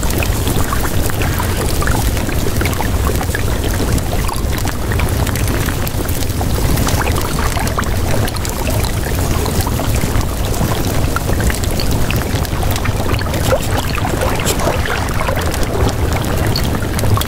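Steady rushing noise like running water, with no clear music or speech.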